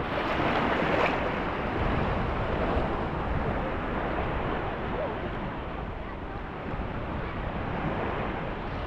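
Small sea waves lapping and breaking in shallow water, a steady wash that is louder over the first few seconds as a small crest breaks. Wind rumbles on the microphone underneath.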